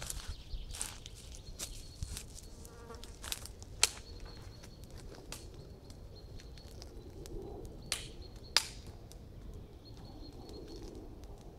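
Wood campfire of dry branches crackling, with scattered sharp pops and snaps, the loudest a little before 4 seconds in and twice around 8 to 9 seconds in.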